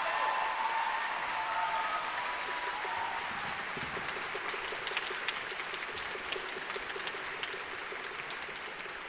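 Audience applause in a concert hall: steady clapping that slowly fades and thins toward scattered individual claps near the end.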